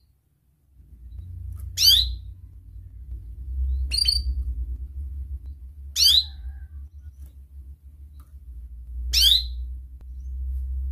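Domestic canary giving four short, sharp chirps, each sweeping quickly down in pitch, spaced about two to three seconds apart. A low steady rumble runs underneath from about a second in.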